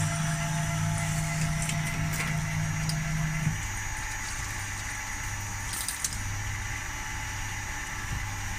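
A machine tool running steadily with a hum and a high whine. One lower tone stops about three and a half seconds in, and a few light clicks sound.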